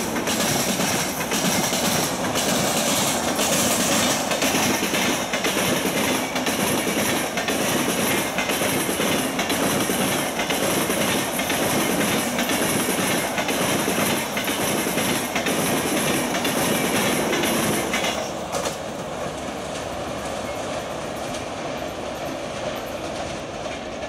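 Passenger coaches of an express train rushing past at speed: a loud rush of wheels and air with a regular clatter of wheels over rail joints. About three-quarters of the way through the noise drops as the last coach goes by and the train moves away.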